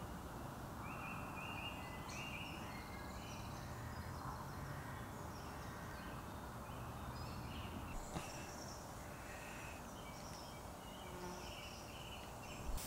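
Small birds chirping and singing, short high calls scattered throughout over a steady low hiss, with a couple of faint clicks about eight seconds in.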